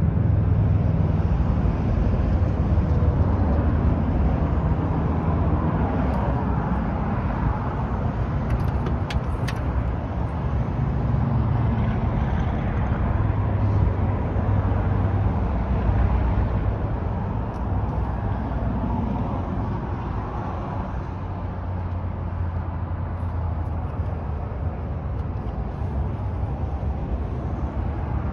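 A 1969 Chevrolet Camaro SS's V8 engine idling steadily, a low, even rumble that holds throughout.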